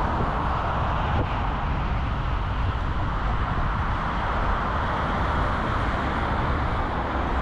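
Steady road traffic noise from a busy multi-lane highway, with wind buffeting the microphone as a ragged low rumble.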